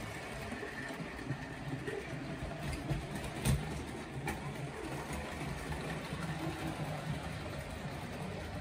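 Model steam locomotive, a Matchbox Crescent Limited, running along track with six Rivarossi coaches behind it: a steady low rumble of motor and wheels, with a couple of sharp clicks about three and a half and four seconds in.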